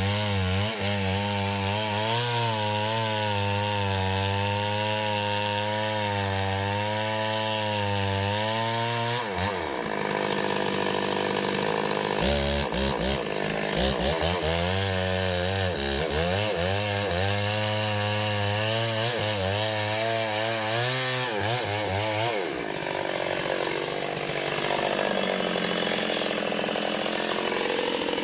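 Small homemade chainsaw with a two-stroke engine, cutting into a large kapok trunk. The engine note wavers up and down as the chain loads in the wood. The revs drop away about nine seconds in and pick back up a few seconds later as cutting resumes.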